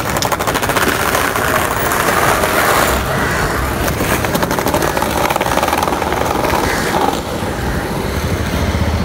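Skateboard wheels rolling over rough pavement, a fast clattering rattle that eases off after about three seconds, with street traffic underneath.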